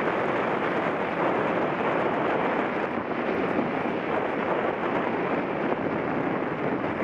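Steady rushing wind noise on the microphone of a mountain bike ridden at speed.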